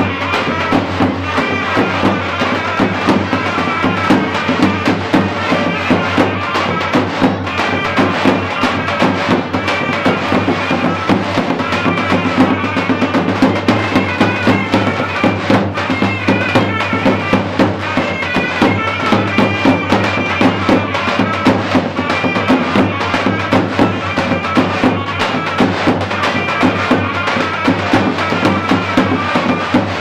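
Loud Turkish folk dance music for a halay: a shrill reed melody over a steady drum beat.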